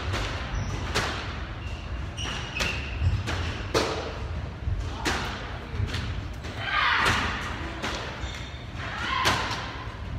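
Squash ball struck by rackets and hitting the court walls: sharp thuds at irregular intervals, roughly one a second, echoing in the hall.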